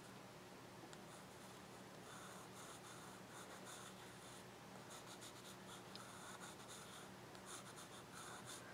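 Faint, soft scratching of a watercolour brush stroking across paper, in short repeated strokes.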